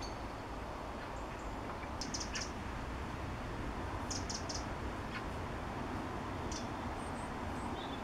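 A small bird chirping in short high notes: two quick runs of three, about two seconds apart, then a single note, over a steady low background rush.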